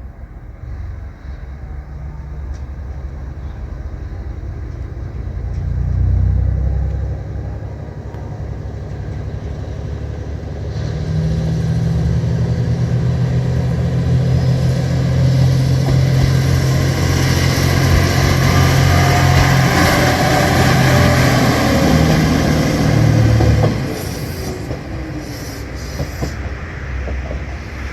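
JR Shikoku 2700 series diesel express railcars pulling away under power, with a steady low engine drone that builds and then holds strong while the wheels rumble past on the rails. Near the end the engine drone suddenly falls away, leaving a fainter rumble.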